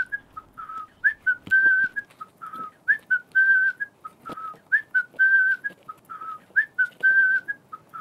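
A whistled tune: a short phrase of clear high notes that repeats about every two seconds, with a few soft knocks underneath.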